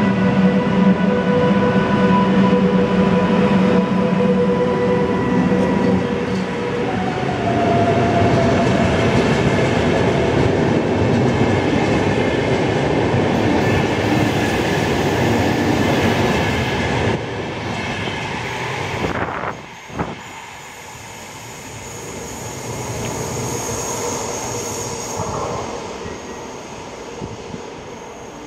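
VR class Sr2 electric locomotive pulling away past the platform. Its traction equipment gives a steady multi-tone whine for the first several seconds. Then the double-deck InterCity coaches roll by with loud wheel and rail noise. That noise drops away sharply after about nineteen seconds, leaving a faint high-pitched squeal as the train recedes.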